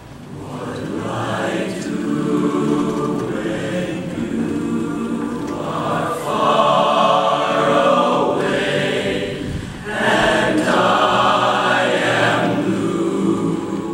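Boys' barbershop chorus singing a cappella in close harmony. The sound builds from quiet over the first couple of seconds, and dips briefly just before ten seconds in before swelling again.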